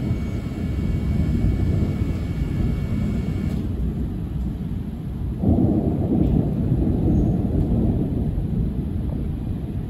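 A long, continuous rumble of thunder from a severe thunderstorm, swelling louder about halfway through.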